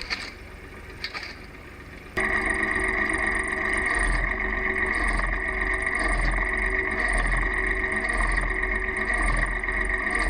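A machine starts abruptly about two seconds in and runs steadily with a high whine and a low pulse about once a second; before that there is quieter background with a few knocks.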